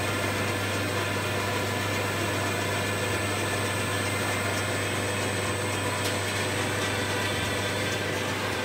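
Muller Martini Bravo Plus saddle stitcher running with a steady mechanical hum: a strong low drone under a faint high whine.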